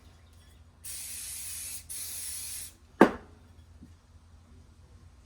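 Two short hissing sprays from an aerosol can, about a second each, followed by a single sharp knock.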